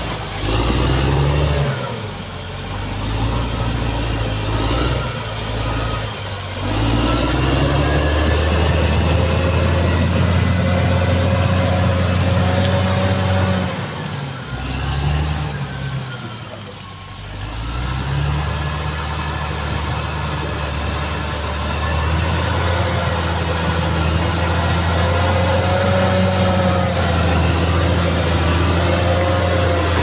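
Caterpillar D6R XL bulldozer's diesel engine working under load as it pushes earth, with a high whine above the engine note. The engine eases off and goes quieter for a few seconds around the middle, then pulls hard again.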